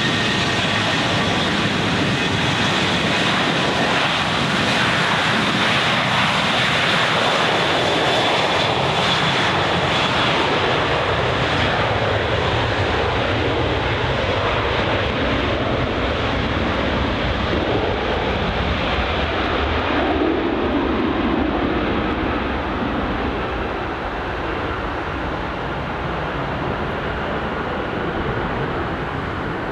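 Jet engines of a Boeing 737-700 running, a steady loud jet noise with a thin high whine in the first half that fades, the sound easing off somewhat in the last third as the jet moves away.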